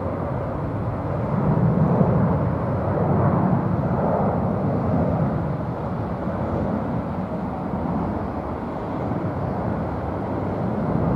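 Airbus A330-300 twin-jet climbing out after takeoff: a steady jet-engine rumble that swells and fades in slow waves.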